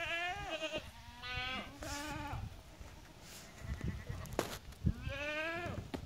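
Lamb bleating: several quavering bleats in the first two and a half seconds, then one more about five seconds in. A sharp knock comes just before the last bleat.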